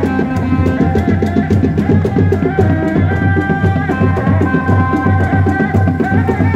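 Sundanese reak music: dog-dog frame drums beating a steady, driving rhythm, with a high, sustained melody held above them.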